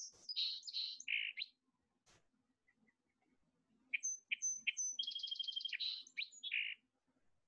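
Song sparrow song played from a recording: the tail of one song, then after a pause of about two and a half seconds a second song of a few sharp introductory notes, a fast trill and a few closing notes.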